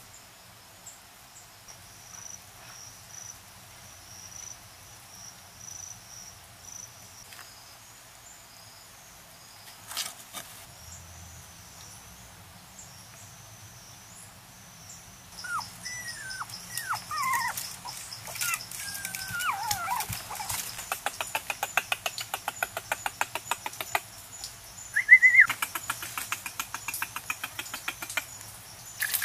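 Puppies whining and yelping in short cries that fall in pitch, starting about halfway through, with one louder cry near the end. Before them, faint high insect chirping and a single sharp knock.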